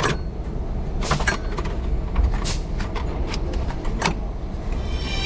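Hands working parts around a Kia Bongo's cooling fan and radiator: a string of scattered clicks and knocks over a steady low rumble.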